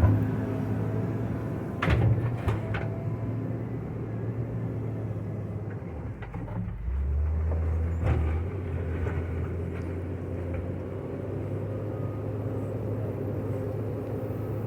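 JCB 426ZX wheel loader's diesel engine running steadily while working gravel, with a sharp knock at the start and another about two seconds in; the engine note drops and grows heavier about halfway through, then settles again.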